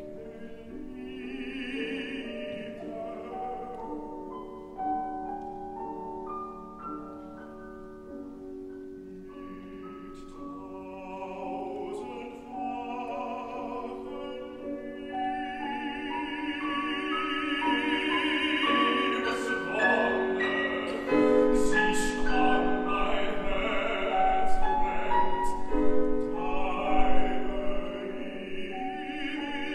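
Baritone singing a German art song in a trained operatic voice, accompanied on grand piano. The music swells louder through the second half.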